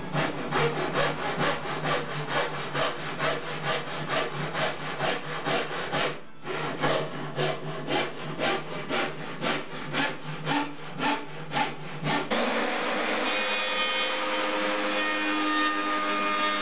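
Hultafors handsaw cutting film-faced plywood in quick, even strokes, about three a second, with a short pause about six seconds in. About twelve seconds in, the strokes give way to the steady running of a power router.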